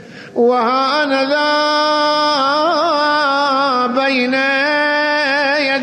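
A man's voice chanting one long held note with small wavering melodic turns, in the style of a devotional chant. It comes in about half a second in and holds through to the end.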